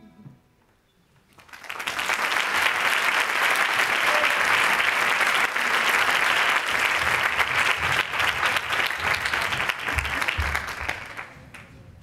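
Audience applauding, breaking out about a second in after a brief silence and fading away near the end.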